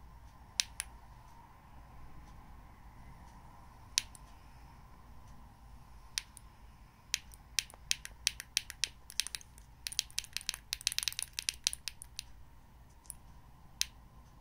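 Small tactile pushbutton on a breadboard clicking under a fingertip: a few single presses, then a rapid flurry of clicks for several seconds, then two more presses near the end.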